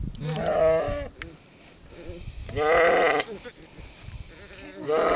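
Young lamb bleating three times, about two seconds apart, as a rubber docking band is put on its tail with elastrator pliers: his reaction to the brief pinch of the band.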